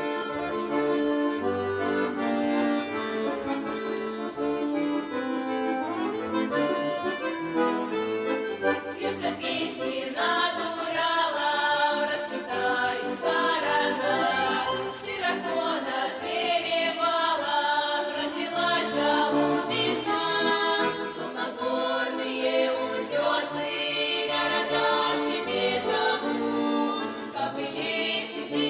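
Accordion playing the introduction of a Russian folk-style song, with children's ensemble voices joining in singing from about nine seconds in.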